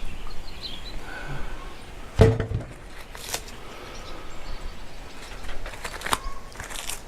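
Quiet outdoor background with a single heavy thump about two seconds in and a few sharp clicks later on.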